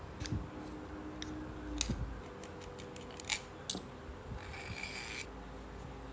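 Small hard metal parts being handled: scattered clicks, then two sharp ringing clinks a little after halfway, followed by a brief rasping whir.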